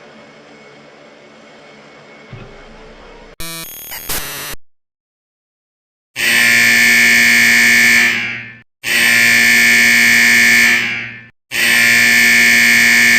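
Emergency Alert System SAME header: three loud, screechy digital data bursts of about two and a half seconds each, with short gaps between them. They are preceded by a faint hiss, a brief glitchy burst about three seconds in, and a moment of silence.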